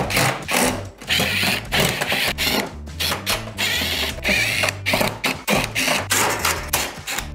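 Cordless power driver whirring in short repeated bursts as it backs screws out of the sheet-metal cabinet panels of an air-conditioner outdoor unit, over background music.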